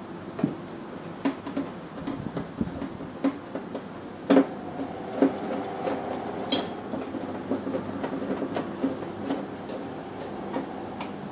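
Small metal clicks and clinks of bolts, washers and slotted metal corner plates being handled and screwed onto the back of a TV with a screwdriver, with a sharper click about four seconds in and another about six and a half seconds in.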